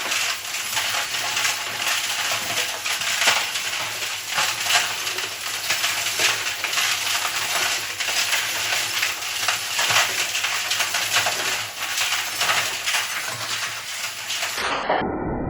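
Rusty steel nuts and bolts tumbling in a turning mixer drum with oil and fuel, a loud continuous metallic clattering and rattling as they are cleaned of rust. About a second before the end it cuts abruptly to a duller, muffled sound.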